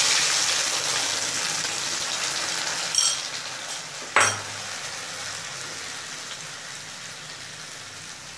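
Ground mustard paste sizzling as it hits hot mustard oil in a wok: a loud hiss at first that fades steadily as the paste settles. Two sharp clinks come about three and four seconds in.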